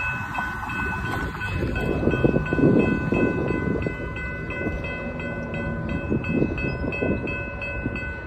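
Railroad grade-crossing warning bell ringing steadily, about three strikes a second, with its ringing tones held between strikes.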